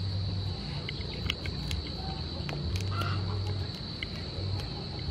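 Cooked river prawn shell being cracked and peeled apart by hand, a scatter of short sharp clicks, over a steady high-pitched hum with chickens clucking in the background.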